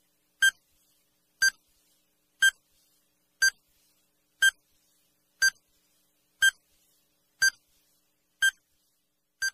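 Countdown-timer sound effect: ten short electronic beeps, one a second, with silence between them.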